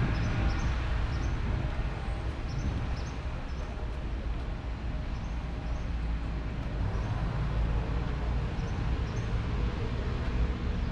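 Steady road traffic noise, a continuous rumble of passing vehicles in a city street.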